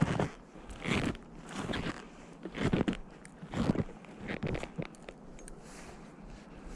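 Footsteps of someone walking on snowshoes, each step crunching in the snow, about one a second, stopping about five seconds in.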